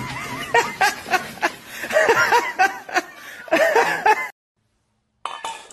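Many cats meowing over one another, a rush of short rising-and-falling calls that cuts off suddenly about four seconds in.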